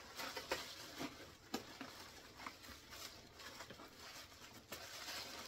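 Plastic wrapping rustling and crinkling, with scattered light clicks and taps, as an item is handled and lifted out of its packaging box.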